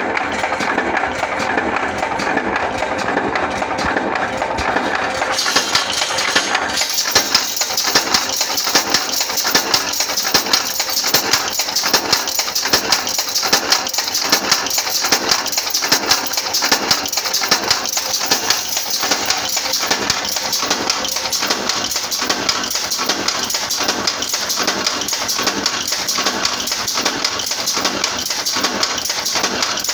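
Power press with a progressive die stamping small metal parts from a steel strip, striking in a fast, even rhythm of metallic punching strokes. A high hiss comes in about six seconds in.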